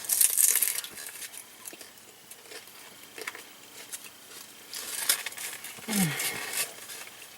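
Crisp crackling and crunching from handling and biting crunchy rolled tacos. It is loudest in the first second and again from about five to nearly seven seconds in, with a short hummed 'mm' near six seconds.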